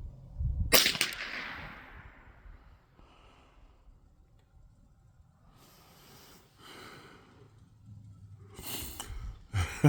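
A single shot from a Winchester Wildcat semi-automatic .22 LR rifle, fired about a second in, with a short trailing echo. Later come soft breathy noises.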